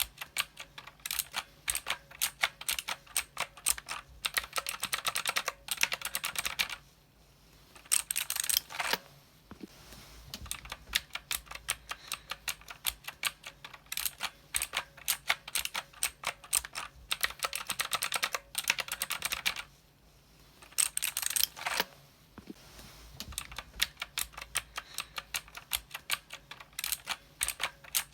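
Typing on a mechanical keyboard: rapid runs of clicky keystrokes with brief pauses about 7 and 20 seconds in.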